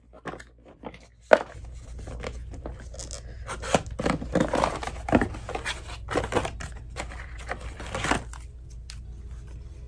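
Canon G7X Mark III camera box being opened by hand: packaging torn, scraped and crinkled in irregular bursts, with a sharp snap about a second and a half in.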